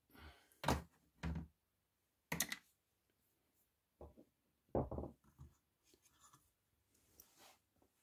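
Handling noise on a wooden workbench: about half a dozen short knocks and thunks at irregular spacing, as a screwdriver and a Chinese diesel air heater are picked up and moved about.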